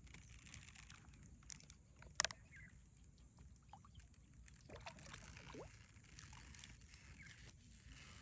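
Near-quiet outdoor ambience with one sharp click about two seconds in and a few faint short chirps later.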